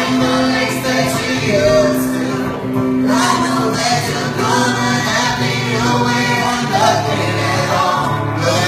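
Pop/R&B song playing: several sung voices in harmony over a steady backing track.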